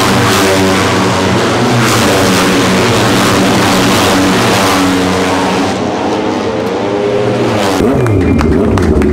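Moto2 race motorcycles with Triumph 765 cc three-cylinder engines running at high revs past the pit wall, their pitch rising and falling. About 8 s in, one engine drops sharply in pitch as it passes, then a steadier, lower engine note follows.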